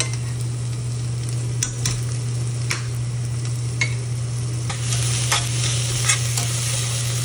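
Ginger-garlic paste frying with onions in oil in a stainless steel pressure cooker, sizzling as a metal spatula stirs and scrapes against the pot with scattered clicks. The sizzle grows louder about five seconds in as the paste is worked into the hot oil.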